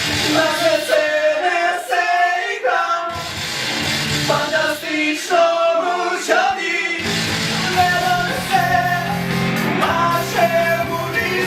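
A band playing a song with sung vocals. Twice the bass drops out, leaving the voices over lighter accompaniment, and the full band comes back in about seven seconds in.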